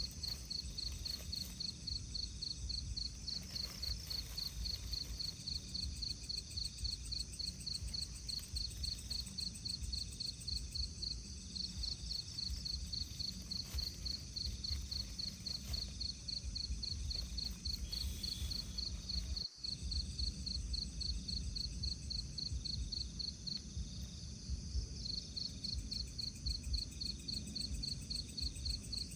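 Night insect chorus: crickets chirping in a fast, even pulse, over a low steady rumble. The sound drops out for an instant about two-thirds of the way through.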